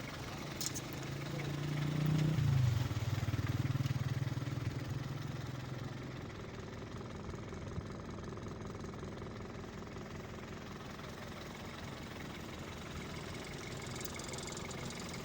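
A motor vehicle's engine passes close by: it grows louder for about two seconds, drops in pitch, then fades away over the next few seconds. A steady rushing noise lies underneath.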